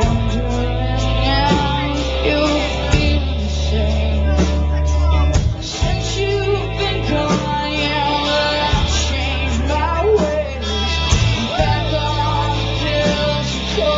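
Live rock band playing loudly: electric guitars and drums, with a woman singing over them, heard through a pocket camcorder's built-in microphone in a club.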